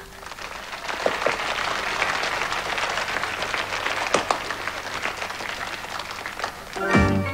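Applause that builds over the first second or so and then holds steady, giving way to music near the end.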